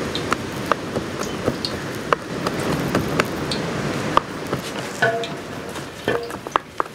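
Kitchen knife chopping on a wooden cutting board: sharp, even knocks about three a second over a steady hiss. A few brief clinks and scrapes come about five seconds in.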